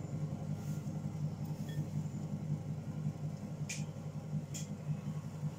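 Electric pottery wheel running with a steady low hum while a bowl is trimmed on it; two short sharp clicks a little past halfway.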